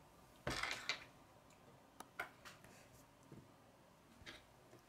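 Plastic K'nex building pieces being handled: a short clattering rattle about half a second in, then a few light clicks.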